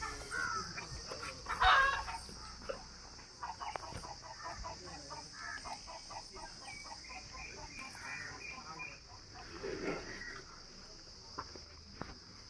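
Village chickens clucking, a run of short repeated calls through the middle, with one louder call about two seconds in. A steady high hiss runs underneath.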